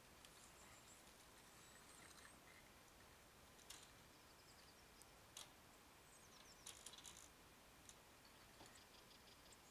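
Near silence, broken by a few faint metallic clicks and rattles from a metal farm gate being pushed open and handled, with a cluster of clicks about seven seconds in. A few faint high chirps sound in the background.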